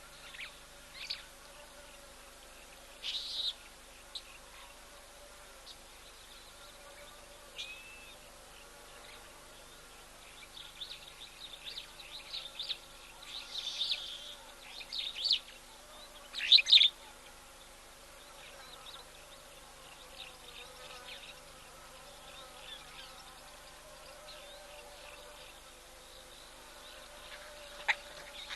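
Short high bird chirps in scattered bursts, busiest in the middle, over a faint steady insect drone.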